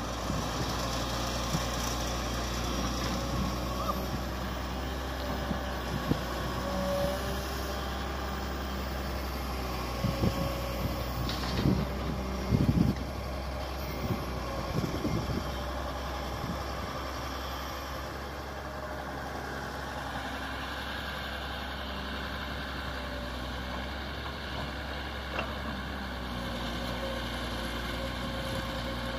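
Kobelco SK200 hydraulic excavator's diesel engine running steadily as it works, digging and swinging. A cluster of thuds and clunks about halfway through, as the bucket empties its soil into the dump truck's bed.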